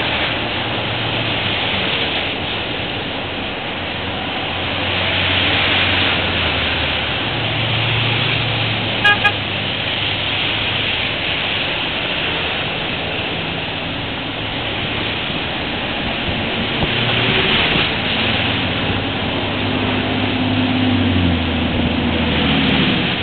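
Cars and pickup trucks passing on a wet road, their tyres hissing through the water in slow swells over a low engine hum. A car horn gives two quick beeps about nine seconds in.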